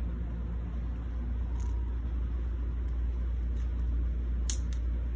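Wind buffeting the microphone: a steady low noise, with a few short clicks near the end.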